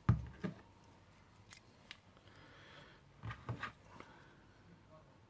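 Light plastic clicks and knocks from the white plastic base cap of a Netatmo indoor module being pulled off the body and turned in the hands. There is a sharp click at the start, a few scattered clicks, and a short run of clicks about three and a half seconds in.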